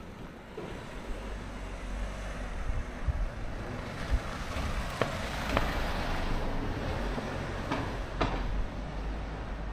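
A vehicle passing by on the street: its tyre and engine noise swells to a peak about halfway through, then eases off. A few sharp clicks come near the middle.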